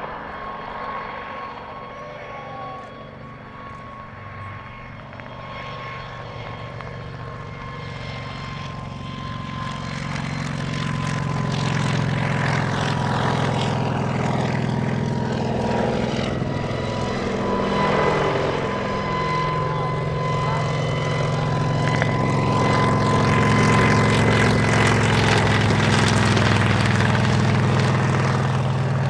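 Kamov Ka-26 helicopter, with its coaxial rotors and twin nine-cylinder radial piston engines, flying a low pass. It makes a steady engine drone with a thin high whine above it. The sound grows louder as it approaches, drops in pitch as it passes close about halfway through, and stays loud to the end.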